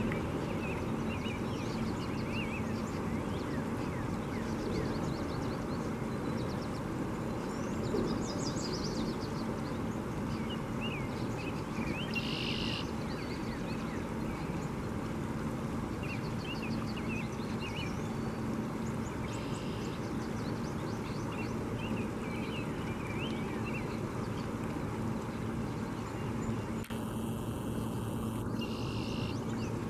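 Small songbirds chirping now and then over a steady rushing background noise, with a few brief buzzy high calls.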